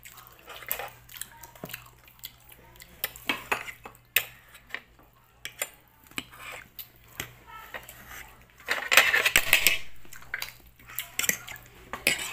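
Eating by hand from a ceramic plate: fingers picking and pressing food against the plate make scattered small clicks and scrapes, mixed with chewing. The sounds come denser and louder for about a second a little past the middle.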